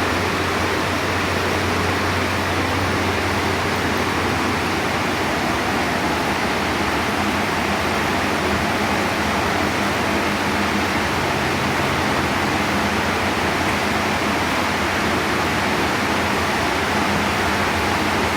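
Heavy rain pouring down in a steady, even hiss, with no let-up.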